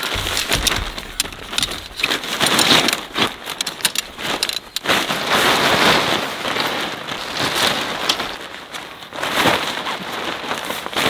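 Helsport Valhall tent fabric rustling and crinkling as a pole is pushed through its sleeve and the fabric is pulled and lifted. It comes in uneven swells with scattered crackles.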